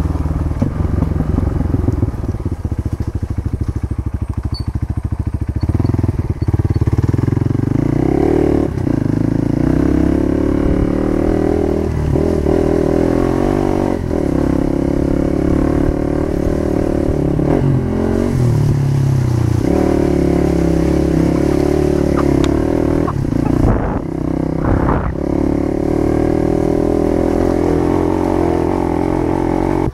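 Motorcycle engine running under way, its pitch stepping up and down every few seconds as the throttle and gears change.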